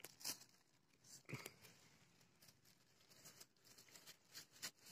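Faint crinkling and rustling of a thin black plastic bag as hands twist its neck shut, in a few short scattered crackles.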